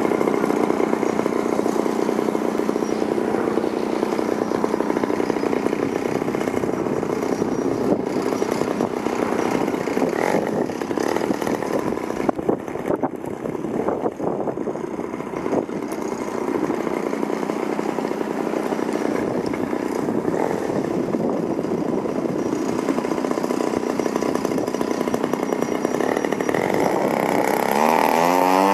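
Gasoline engine and propeller of a Hangar 9 Cap 232 80-inch RC aerobatic plane running steadily as the plane taxis. Near the end the engine opens up with a rising pitch for the takeoff run.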